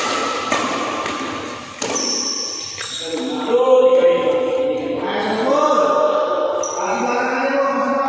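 Four sharp hits in the first three seconds, a badminton racket striking a shuttlecock, followed by long held voices calling out.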